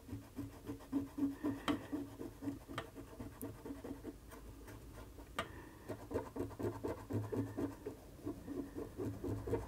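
Cotton swab scrubbing back and forth over a circuit board's chip pads, a soft rhythmic scratching at about three or four strokes a second, easing off briefly midway, with a few sharp clicks. It is cleaning off flux residue and the contamination left where the chip blew.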